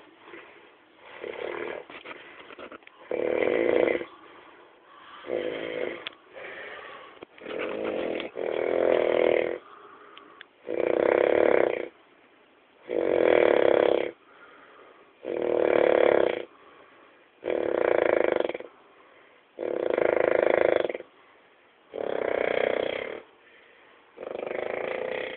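Snoring in a regular rhythm, one snore about every two to two and a half seconds. The snores grow louder and longer about a third of the way in.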